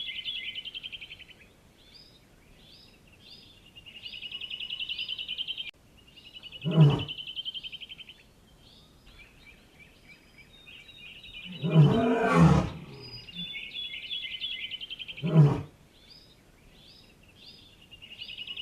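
Lion growls: four short, loud calls a few seconds apart, the one about twelve seconds in the longest. Between them a high, rapidly pulsing trill comes and goes.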